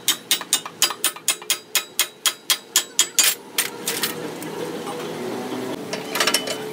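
Hammer blows on a steel tractor bracket, a fast steady run of about four ringing strikes a second that stops after about three seconds. A brief metallic clatter comes near the end.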